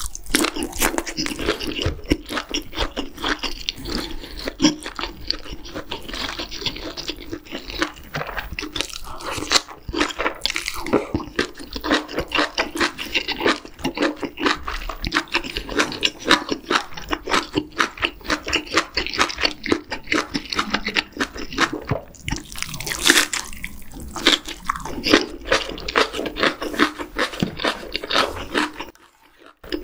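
Close-miked eating: wet, crunchy chewing and smacking as a sausage and kimchi are bitten and chewed, a dense uneven stream of small crunches and clicks. A brief louder rush of noise comes about 23 seconds in.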